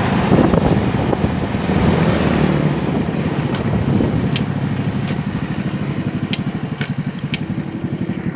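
Motorcycle engine running while riding, with wind buffeting the microphone; as the wind eases in the second half, the engine's steady pulsing throb comes through more plainly.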